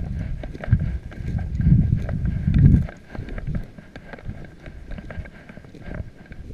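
Footsteps and handling noise from a hunter moving through dry grass: uneven low thumps and rustling on the microphone, heaviest in the first three seconds and then lighter.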